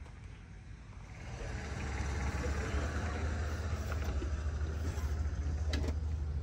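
Detroit Diesel 8V71 two-stroke V8 diesel in a 1967 GMC 9500 truck idling with a steady low rumble that grows louder about a second in. A brief click comes near the end.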